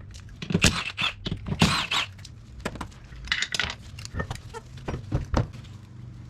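Irregular metal clinks, taps and scrapes of lug nuts and a 17 mm socket wrench as the nuts come off an ATV's rear wheel, over a low steady hum.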